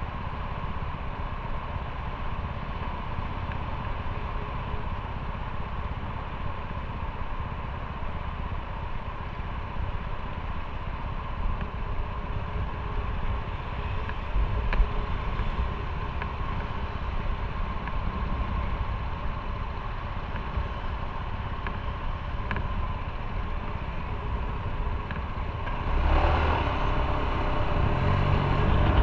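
Motorcycle engine running steadily, growing louder about three-quarters of the way in.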